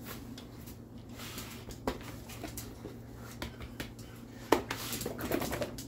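A large dog being petted and ruffled by hand: fur rubbing, scattered small clicks and shuffling, with a sharp tap about four and a half seconds in, over a steady low hum.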